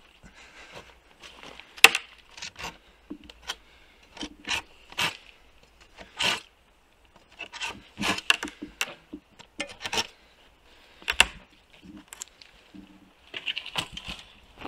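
Wooden branch being handled against a tree trunk: irregular knocks, scrapes and rubbing of wood on bark, with a few sharp knocks spread through.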